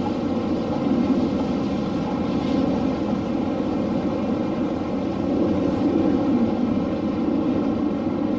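A passing train's steady rumble, with no distinct beat.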